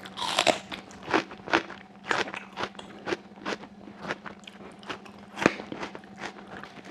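Close-miked chewing of stewed sheep's trotters and chickpeas, with sharp wet clicks about twice a second, loudest just after the start and again about five and a half seconds in.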